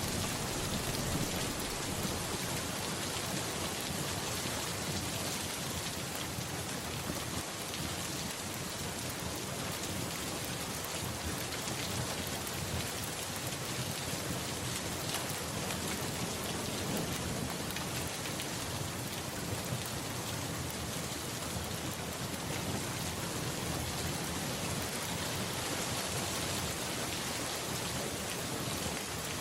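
Steady rain falling and pattering on surfaces, with a low rumble of thunder underneath.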